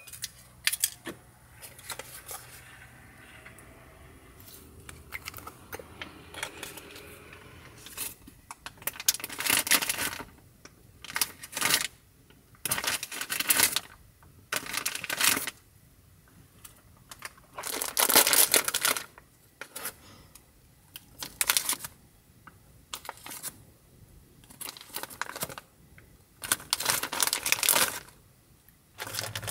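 Plastic sausage packet crinkling in short bursts every couple of seconds as sausages are pulled out one at a time, with quieter handling clicks before the first burst about eight seconds in.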